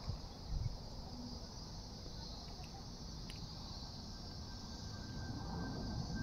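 Steady high-pitched chorus of insects, over a faint low rumble from a climbing jet airliner that grows slowly louder toward the end. There are a couple of soft low bumps in the first second.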